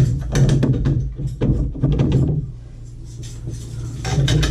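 Knocks and clatter of tools and parts being handled, over a steady low hum.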